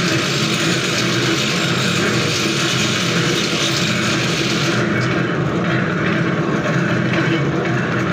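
Automatic thread-rolling machine running with its vibratory bowl feeder: a loud, steady mechanical hum with a hiss above it. The hiss eases about five seconds in.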